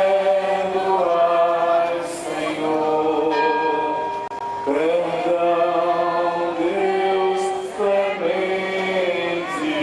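Voices singing a slow devotional hymn in long held notes, several parts together, with a short break about four seconds in.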